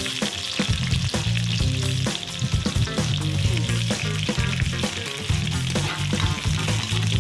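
Sliced green vegetables hitting hot oil and garlic in a wok, sizzling and frying steadily from the start, over background music.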